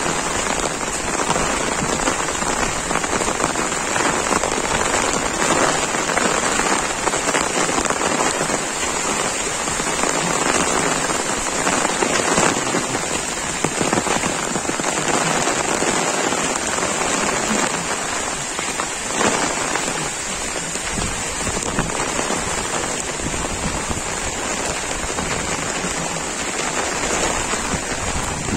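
Heavy monsoon rain falling steadily, hitting an umbrella held overhead and the wet ground around.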